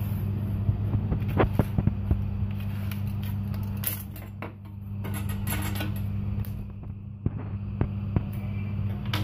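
Light taps, clicks and rustles of cardboard pieces and a steel ruler being handled on a tabletop, over a steady low hum.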